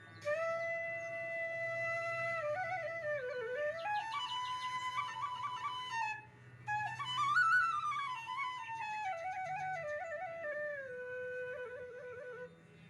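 Background music: a single melody line with sliding, stepping pitch, played in two phrases with a short break about six seconds in.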